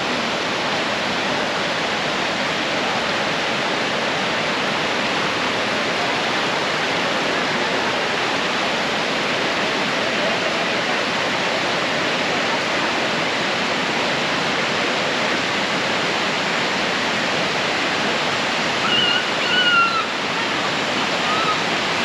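Waterfall rushing steadily, an even hiss of falling water with no let-up.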